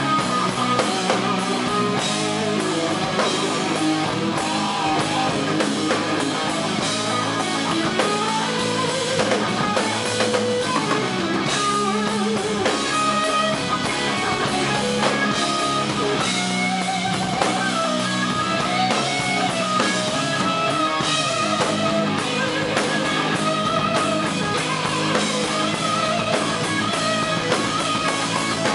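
Live rock band playing, with a lead electric guitar solo of long, wavering, bent notes over drums and bass.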